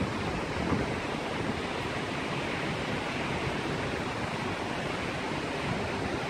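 Heavy rain falling, a steady even hiss with some low wind rumble on the microphone.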